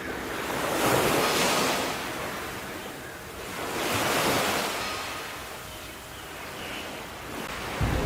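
Sea waves washing on a shore: a steady surf that swells twice, about a second in and again about four seconds in, then ebbs.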